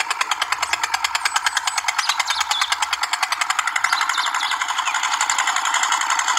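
Toy model single-cylinder diesel engine running steadily, a fast, even clatter as it turns its flywheel and drives a small belt-driven water pump.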